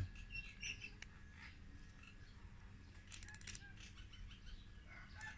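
Nylon cable tie zipped tight, a quick ratcheting run of clicks about three seconds in, with faint bird chirps around it.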